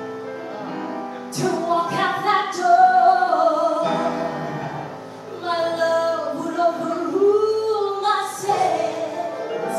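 A woman singing live into a microphone over musical accompaniment, with long held notes that slide up and down in pitch.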